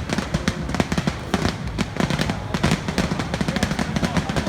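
A string of firecrackers going off in a rapid, continuous crackle of many sharp bangs.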